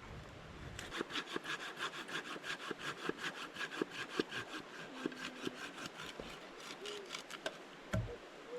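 Hand saw cutting through wood in quick, even back-and-forth strokes, about four a second, stopping about seven and a half seconds in.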